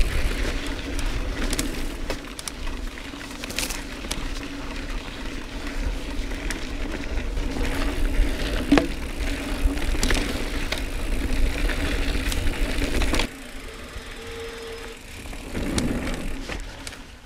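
Mountain bike rolling fast over dirt singletrack: tyre noise and low rumble, with frequent sharp clicks and rattles from the bike. About 13 seconds in, the sound drops suddenly to a quieter ride.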